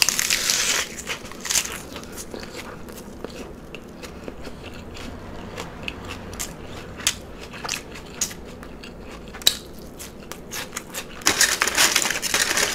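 Very close-miked eating of a lettuce-wrapped cheeseburger slider: a crunchy bite into iceberg lettuce at the start, then chewing with many small wet mouth clicks, and another stretch of crunching near the end.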